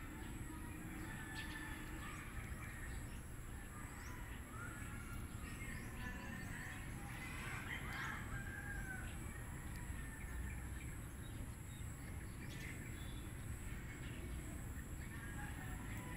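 Faint outdoor ambience: a steady low background rumble with scattered distant bird calls, the clearest about halfway through.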